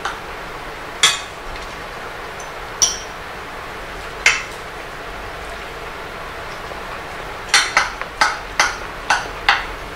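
Cutlery clinking against ceramic plates as people eat: a few scattered clinks, then a quicker run of about six near the end.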